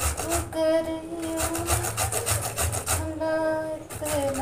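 Bottle gourd being grated on a stainless-steel box grater, with quick, even rasping strokes as the gourd is pushed up and down the blades. Twice a steady pitched tone is held for about a second, about half a second in and about three seconds in.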